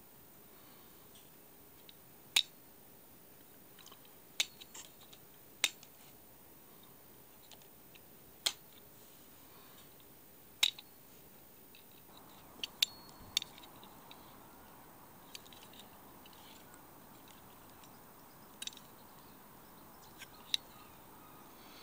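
Scattered sharp clicks and knocks from a 1960s Japanese sidecast centrepin reel, an Angler Scout 8-80, being handled: the reel is swung on its foot and its spool and fittings are moved, about a dozen separate clicks in all. A faint steady hiss underneath grows slightly about halfway through.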